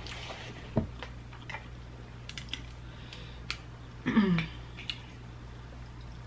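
Close-miked eating sounds: chewing with scattered small sharp clicks as mussel shells are handled, and a short falling voiced sound about four seconds in.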